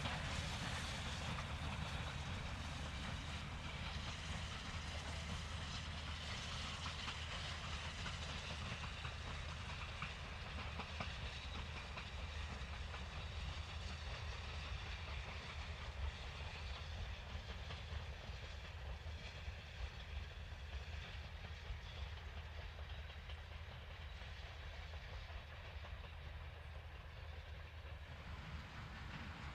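Distant double-headed steam train, two 2-8-0 Consolidation locomotives hauling carriages, running away from the listener, its sound fading slowly.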